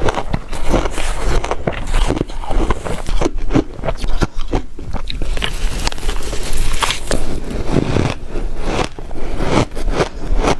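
Close-up biting and crunching of ice: dense, continuous crackling bites and chews.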